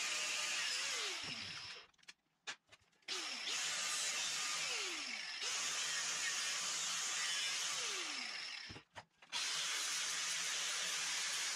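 Angle grinder with a cutting disc running as it cuts through a plastic rod holder. It stops twice, briefly, about two seconds in and about nine seconds in, its pitch sliding down each time before it starts again.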